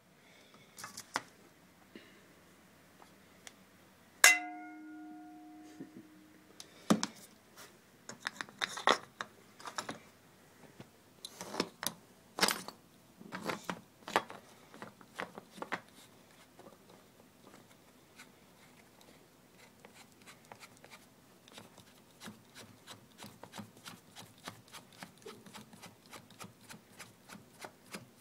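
Handling noise: scattered clicks, taps and rustling, with one sharp knock about four seconds in that leaves a short ringing tone dying away over a couple of seconds. No shots are fired.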